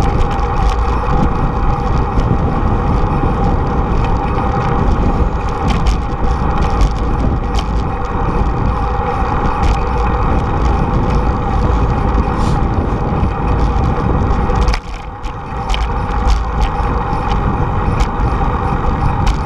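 Steady wind rush on the microphone of a camera riding along on a bicycle, mixed with tyre rumble on pavement and occasional light clicks. The noise briefly drops about fifteen seconds in, then picks up again.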